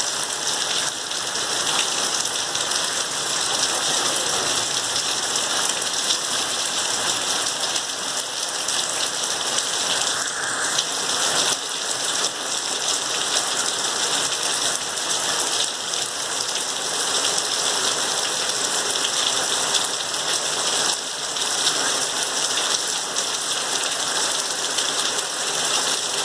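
Heavy rain falling steadily, a dense, even hiss of drops with no thunder.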